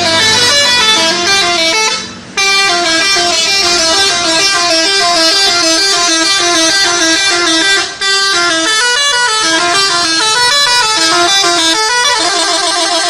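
Bus telolet horns playing a melodic tune of quickly stepping notes, with brief breaks about two seconds in and around eight seconds. Near the end the tune changes to a faster trill.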